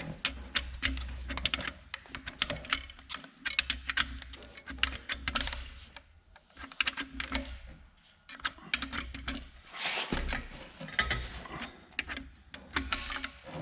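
Ratchet wrench clicking in quick runs of ticks with short pauses between strokes, as bolts are run down on an engine being assembled.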